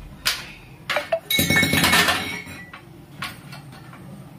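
Kitchen utensils and dishes clinking and knocking together, with a longer rattling clatter about a second and a half in that rings briefly.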